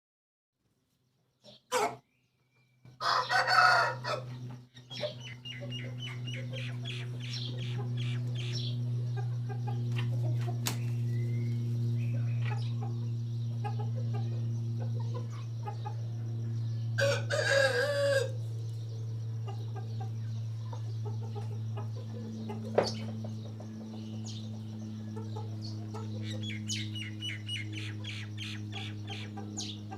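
Aseel rooster crowing twice, about 3 seconds in and again about 17 seconds in, with bouts of rapid clucking between the crows. A steady low hum runs underneath.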